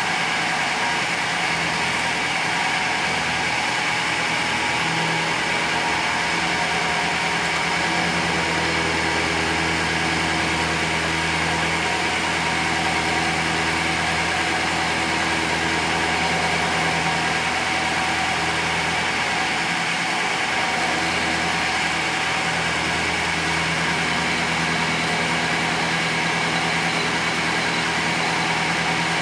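Vertical milling machine running steadily, its end mill cutting a lip off a cast metal ignition-switch top plate; a constant machine whir with a low hum that wavers slightly.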